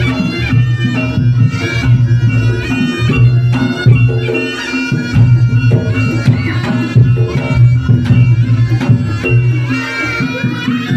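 Reog Ponorogo accompaniment music: a slompret (Javanese double-reed shawm) playing a bending, nasal melody over steady drumming.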